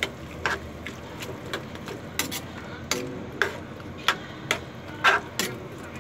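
Metal ladle clinking and scraping against an aluminium wok while pork, potato and carrot chunks in a tomato-paste sauce are stirred: irregular sharp clicks, about two a second.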